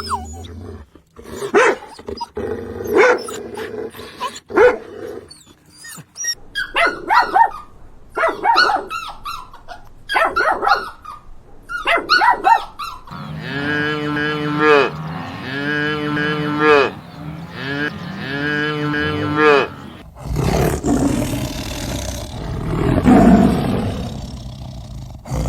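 Farm animals calling: a run of short pitched calls, then three long drawn-out calls that rise and fall, each about two seconds, then a rough, noisier call near the end.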